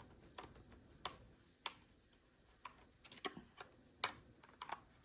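Sharp, irregular clicks and taps of a Toyota Prius master power-window switch assembly being handled and worked off its clips in the plastic door trim piece.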